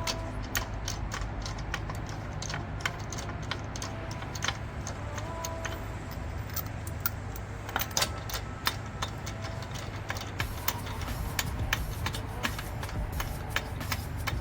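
Irregular sharp clicks and taps, a few a second, over a steady low hum: the clatter of tools and parts being handled during a brake pad change.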